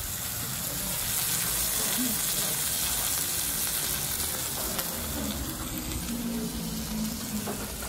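Oyster omelette sizzling on a hot cast-iron serving plate: a steady crackling hiss.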